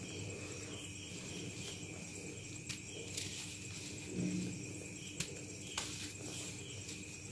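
Dyed gym chalk blocks, not fully dried, crumbling and crunching in the hands, with a few sharp crackles and a soft thud about four seconds in. A steady high insect drone runs underneath.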